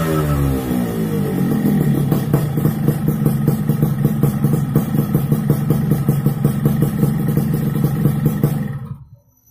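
Yamaha RX King's two-stroke single-cylinder engine with its revs falling off, then idling steadily with a rapid, even popping. The engine sound cuts off suddenly near the end.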